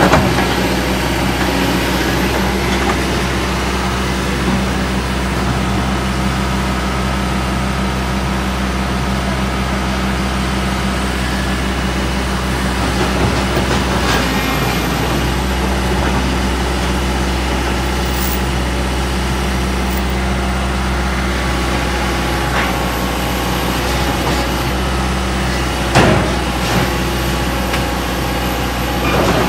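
Heavy truck engine running steadily, with one sharp knock near the end.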